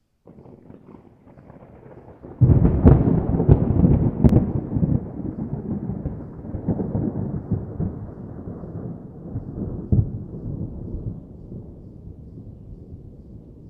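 Thunder. A faint low rumble is followed about two and a half seconds in by a sudden loud clap with a few sharp cracks. It rolls on as a long rumble that slowly fades, with one more crack near ten seconds.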